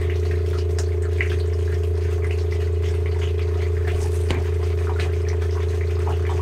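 Water running into a plastic RV water tank as it fills, with many small irregular splashes and trickles over a steady low electric hum.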